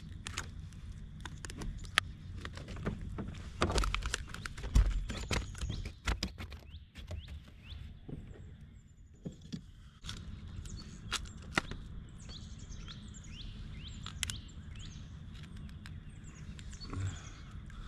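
Scattered clicks and knocks of hands and gear being handled in a kayak while a flounder is dispatched, with a dull thump about four to five seconds in. In the second half a bird chirps in a quick run of short falling notes.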